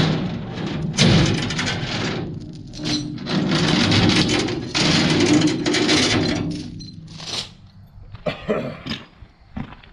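Steel tie-down chain rattling and scraping over a steel trailer deck in several long bursts, dying down to a few light clinks near the end.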